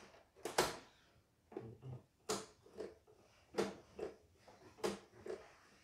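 Portable embroidery machine's needle mechanism clicking and knocking as its handwheel is turned by hand: four sharp clicks about a second and a bit apart, with softer taps between. The mechanism turns lightly rather than binding.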